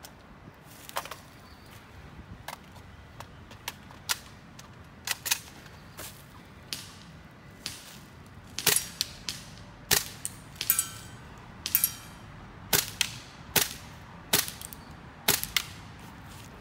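GHK M4 gas blowback airsoft rifle with a GBL short bolt firing single shots, each a sharp crack. The shots are faint and sparse at first, then louder and about one a second in the second half, with a brief metallic ring after a couple of them.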